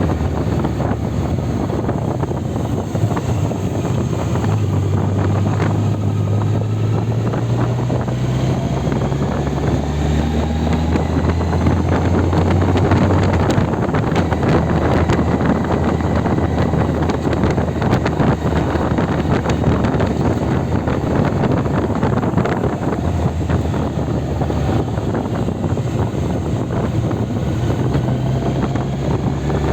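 Motorcycle engine running under way, its pitch climbing steadily from about four seconds in to about thirteen seconds in as it speeds up, with wind buffeting the microphone.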